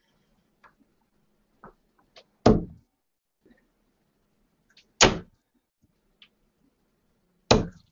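Three darts thudding into a bristle dartboard one after another, about two and a half seconds apart, with a few faint small clicks in between.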